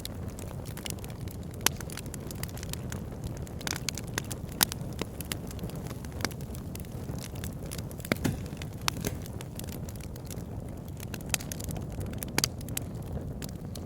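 Wood fire crackling in a fireplace: a steady low rumble of burning with frequent, irregular sharp pops and snaps.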